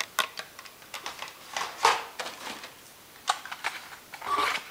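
Plastic blister packs of die-cast toy cars being handled: irregular sharp clicks and short crinkles, the loudest about two seconds in and another cluster near the end.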